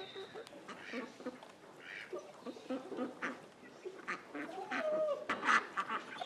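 Farmyard poultry calling: a run of short clucks and squawks, busiest and loudest in the last second or two.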